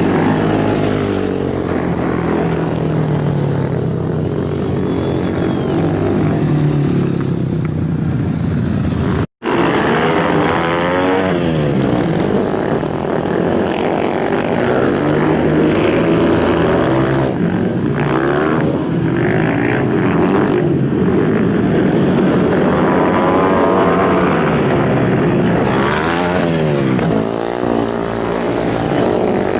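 Racing motorcycles passing at speed, one after another, the engine pitch sweeping down as each goes by. The sound drops out for an instant about nine seconds in.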